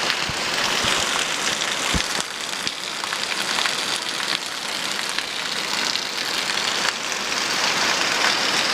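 Heavy rain drumming on a metal garage roof, a steady loud hiss of many fine drop impacts.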